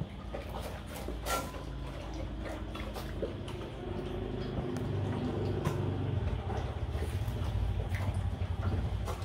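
Dogs eating dry kibble from stainless steel bowls: scattered sharp crunches and clinks of kibble and muzzles against the metal. From about four seconds in, a low motor hum builds and grows louder.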